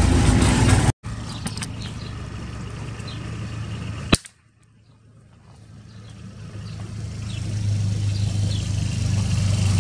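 A single sharp gunshot about four seconds in, fired at a dove. Before it a motor tricycle's engine runs and breaks off; after it a low engine rumble grows steadily louder as a motor tricycle approaches.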